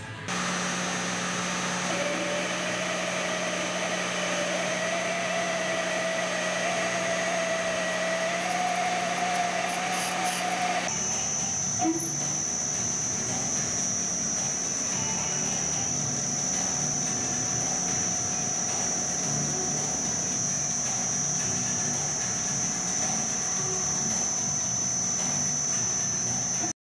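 Milling machine's Z-axis express (rapid) feed running through a bevel gear and timing belt: a steady hum with a whine that slowly rises in pitch. About eleven seconds in, this gives way to a metal lathe turning while a reamer cuts a 9 mm bore, a steady machine sound with a high whine.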